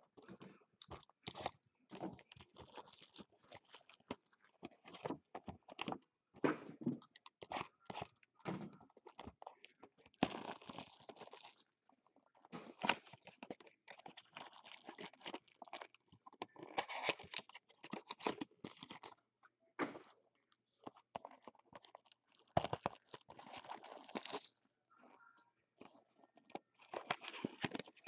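Crinkling and tearing of the foil and cellophane wrappers on 2016 Bowman's Best trading-card packs and mini-boxes as they are unwrapped and handled, in irregular bursts of crackle.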